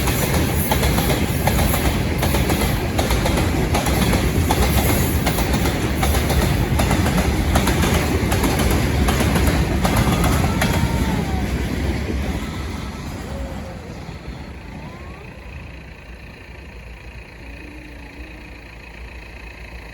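Long train passing over a level crossing: a loud rumble with wheels clattering on the rails, which fades away about two-thirds of the way through as the last cars go by.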